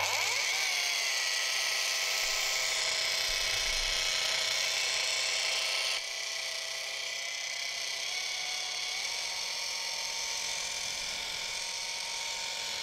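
A high-speed electric motor, as of a vacuum cleaner or polishing machine, running with a steady whine and hiss. Its pitch settles in the first second, the level drops abruptly about six seconds in, and the pitch steps up slightly around eight to nine seconds.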